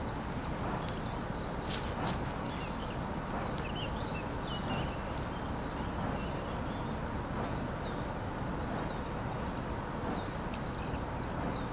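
Outdoor ambience: small birds chirping and twittering over a steady low rumble, with a couple of faint clicks about two seconds in.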